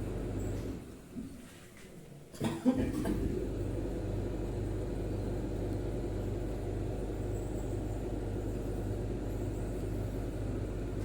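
A steady low hum and rumble, like a running motor or fan. It drops away about a second in, and returns after a click a little over two seconds in.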